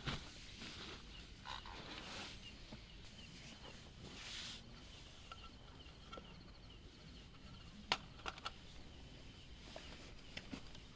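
Faint scattered clicks and knocks of camp cooking gear being handled, with a brief hiss about four seconds in. A faint, repeating high chirping sits underneath.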